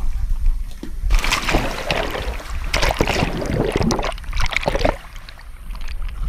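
Yellow Labrador retriever leaping into a swimming pool: a loud splash about a second in, then water sloshing and churning right at the harness-mounted camera as the dog surfaces and swims.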